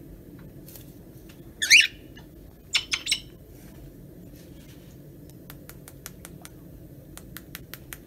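Cockatiel calling: one loud, shrill call about two seconds in, then three short chirps a second later. Toward the end comes a run of light, quick ticks, over a steady low hum.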